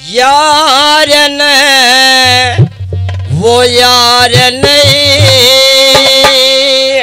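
Haryanvi ragni: a male singer holds long sung notes through a PA, with harmonium accompaniment. Drum beats join about two seconds in and stop a few seconds later.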